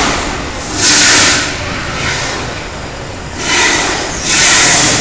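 Gas flame towers shooting fireballs: a loud whoosh about a second in, then two more close together near the end, each lasting about half a second.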